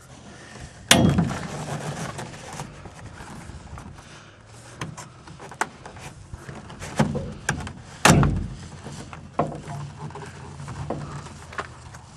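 Hands pressing snap-in ABS plastic wing strut fairings onto the strut: two loud knocks, about a second in and about eight seconds in, with lighter clicks and taps between.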